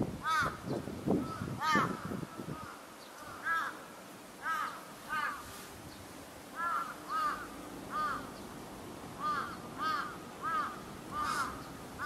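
Crow giving short, repeated caws, about a dozen scattered through the stretch and often in pairs.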